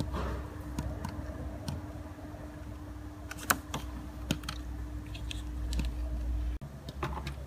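Scattered small clicks and taps of a plastic syringe and its tube being worked while old brake fluid is drawn out of the brake fluid reservoir, over a steady low hum that cuts off abruptly near the end.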